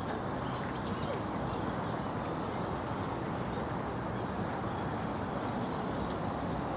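A steady, even rush of background noise with a few faint, high bird chirps about a second in.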